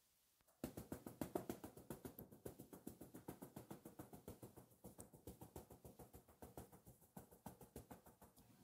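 Hand tapping a handheld metal mesh sieve to sift flour into a glass bowl: a quick, even run of light taps, several a second, starting about half a second in and slowly getting fainter.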